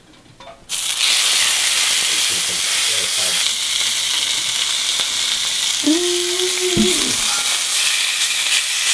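Rib eye steaks laid into a hot cast-iron skillet with avocado oil: the oil bursts into a loud sizzle under a second in and keeps frying steadily as the steaks sear.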